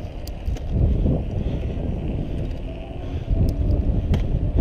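Wind buffeting the microphone of a moving bicycle, mixed with the rumble of its tyres on asphalt, with a few sharp ticks.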